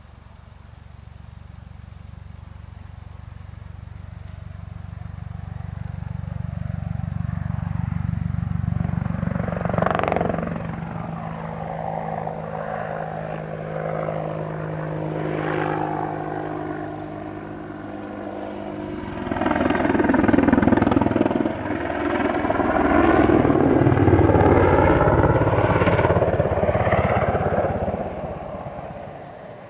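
Boeing AH-64D Apache attack helicopter's rotor and twin turboshaft engines, growing steadily louder as it approaches. It is loudest in the second half as it banks close overhead, with the pitch sweeping, then falls away sharply near the end.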